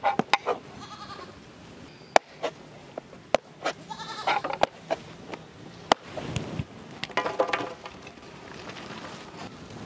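Goats bleating three times in short wavering calls, amid sharp knocks of knives cutting bread on wooden boards.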